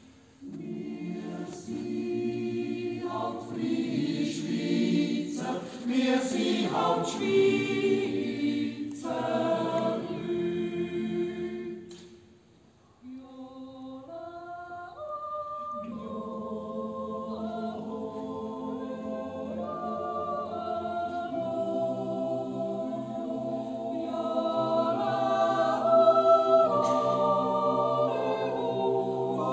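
Swiss yodel choir of men and women singing a yodel song a cappella in close harmony. The singing breaks off briefly about twelve seconds in, then resumes with long held chords that grow louder toward the end.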